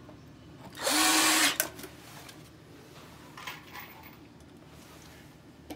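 A cordless drill runs in one short burst about a second in, driving a screw through plywood into the tiled wall.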